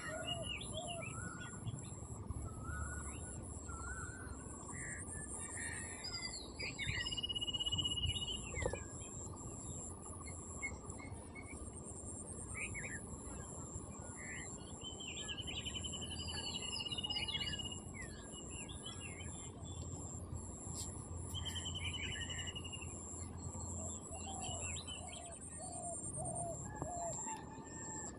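Several birds chirping and calling, with short repeated notes and a few held trills, over a steady high-pitched buzz and low, even background noise.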